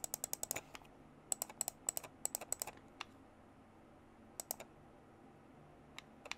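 Computer keyboard keys clicking: two quick runs of keystrokes in the first three seconds, then a few single clicks.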